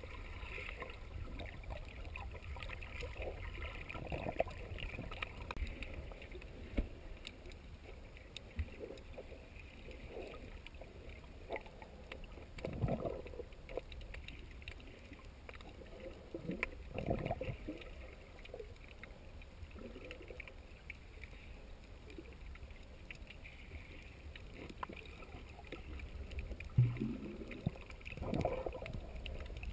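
Muffled underwater sound of water moving around a submerged camera: a steady low rumble and hiss, with a few louder swishes about halfway through and near the end.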